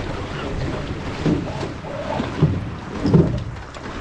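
Water splashing against a Melges 15 sailing dinghy's hull under way, over steady wind on the microphone, with louder splashes about a second, two and a half and three seconds in.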